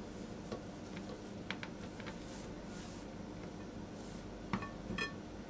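Faint taps and clinks of fingers and dough against a round glass baking dish as the pastry is pressed into it, with two brighter, briefly ringing clinks near the end.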